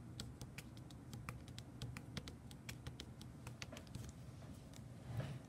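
Clear plastic bag around a rubber mask being handled, giving faint, irregular little clicks and crinkles, several a second.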